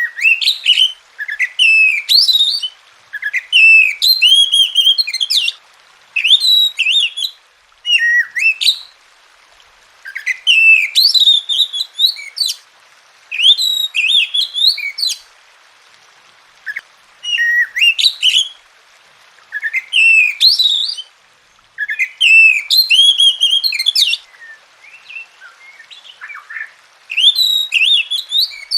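Oriental magpie-robin (kacer) singing loudly: bursts of varied whistled phrases, each lasting a second or two, separated by short pauses.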